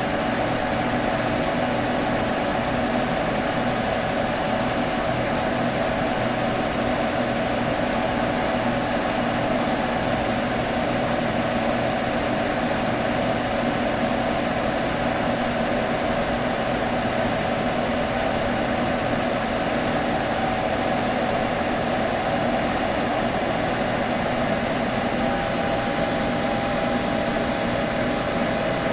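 Computer humming steadily: an even whirring hum that holds the same pitch and level throughout.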